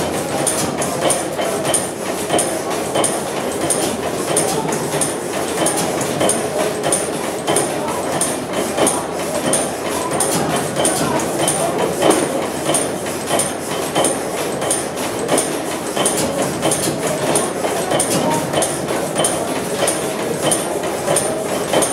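Old Deutz horizontal stationary gas engine with crosshead running steadily: an even mechanical noise with a sharp tick about twice a second.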